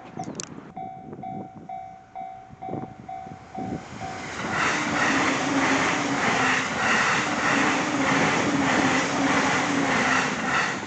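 A Japanese level-crossing warning bell ringing in a steady, evenly pulsed ding, then about four seconds in a Jōban Line train passes the crossing at speed: a loud rush with a regular beat of wheels that drowns out the bell. The train noise stops abruptly near the end.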